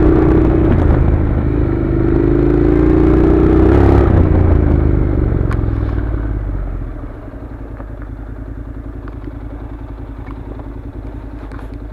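Honda NC700's 670 cc parallel-twin engine running as the bike rides on gravel, with road noise. Its note falls as the bike slows, and about seven seconds in it settles into a steady, evenly pulsing idle.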